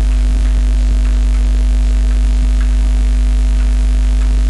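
Loud, steady electrical mains hum, with faint short taps and scratches of chalk writing on a blackboard.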